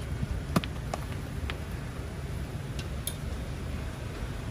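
A few sharp light clicks and knocks, the loudest about half a second in, as cut fruit and sticks are set down on a steel display tray, over a steady low background rumble.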